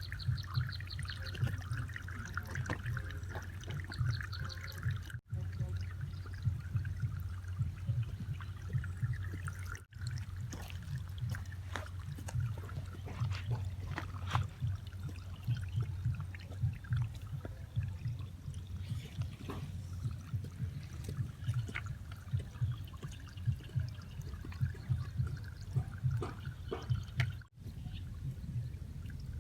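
Water trickling and splashing down a small homemade waterfall, over a steady low hum, with brief dropouts about five, ten and twenty-seven seconds in.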